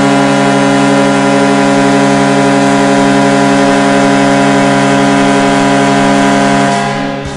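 Vancouver Canucks arena goal horn sounding one long, steady, deep blast to signal a goal, fading out near the end.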